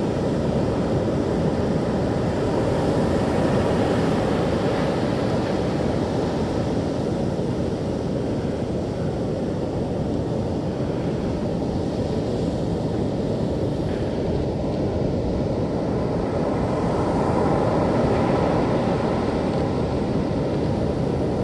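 Ocean surf breaking on a beach, a steady low noise with wind buffeting the microphone.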